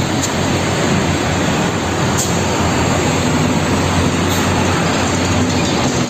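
Road traffic: concrete mixer trucks and motor scooters driving past, a loud, steady rush of engine and tyre noise.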